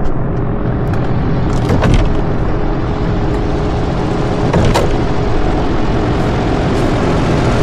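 Boat motor running steadily with a continuous low rumble, and a few brief knocks.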